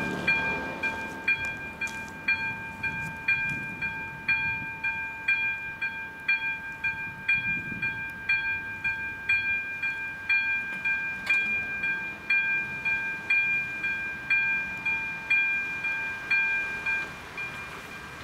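Electronic bell of an AŽD 97 level-crossing warning signal ringing in an even rhythm of about one ding a second, warning of an approaching train. It stops about a second before the end.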